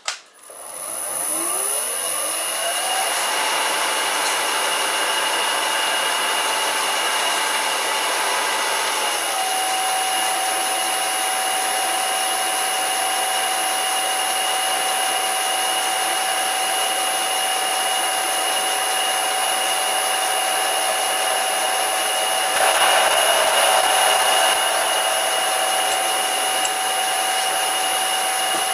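Vintage Karger lathe's motor, run from a new frequency drive (VFD), spinning up in a rising whine over the first two to three seconds, then running steadily with a constant high electronic whine; the pitch steps down slightly about nine seconds in. Near the end a center drill cuts into the end of the spinning stock, adding a louder hissing stretch of a couple of seconds.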